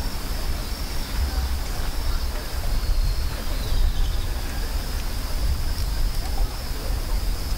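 Wind rumbling on the microphone, with a steady high-pitched insect drone behind it.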